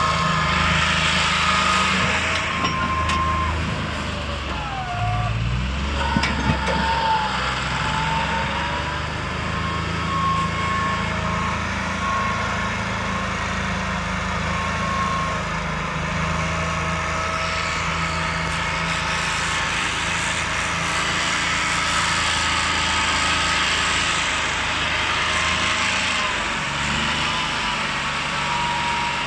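Massey Ferguson 260 turbo tractor's diesel engine running steadily under load as it pulls a heavily laden sugarcane trolley.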